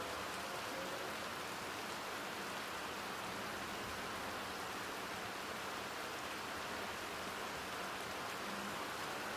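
Steady rainfall, an even hiss of rain with no breaks.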